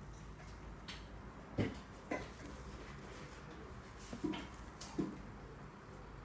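A few faint, short squishes and taps, spread out over several seconds, as slime is handled and worked by hand.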